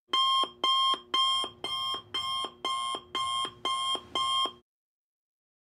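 Electronic alarm sound effect: nine short, pitched beeps, about two a second, that stop abruptly.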